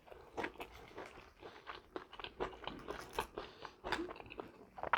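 Close-miked chewing of homemade chicken pizza: irregular soft crunches and mouth clicks.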